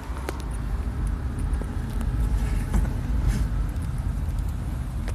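Car driving slowly, with a steady low engine and road rumble heard from inside the cabin.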